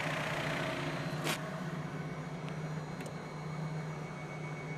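Kokusan CS77 basket centrifuge spinning at speed, with a steady motor hum. A single sharp click comes about a second in.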